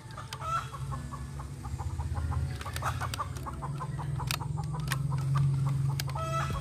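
Chickens clucking, with short calls about half a second in, around three seconds in and again near the end, over a steady low hum.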